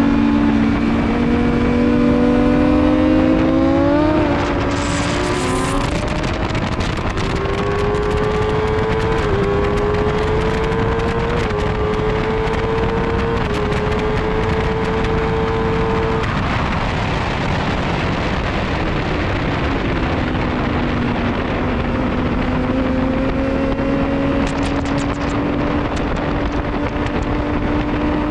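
Motorcycle engine at high revs, its pitch climbing and stepping down slightly at each of several quick upshifts, then falling away as it slows and slowly building again. A steady wind rush runs under it.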